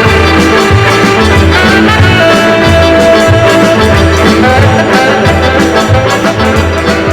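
A 1964 instrumental band record playing, with a steady bass-and-drum beat under long held melody notes.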